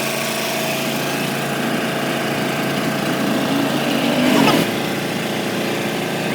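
A machine running steadily, with an even hum and a hiss over it. About four seconds in there is a brief louder swell that bends in pitch.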